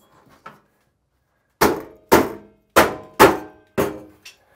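Five sharp metal blows about half a second apart, each with a short ring, as a tool strikes the sheet-metal housing of an old bathroom ceiling exhaust fan to knock it loose from the joists.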